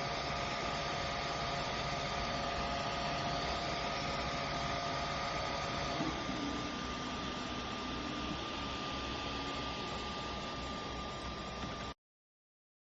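Steady machine hum and whir with several steady tones. The tones change abruptly about six seconds in, and the sound cuts off just before the end.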